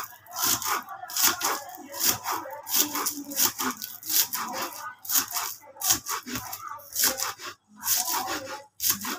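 Kitchen knife chopping spring onions on a wooden cutting board: steady sharp chops, about two a second.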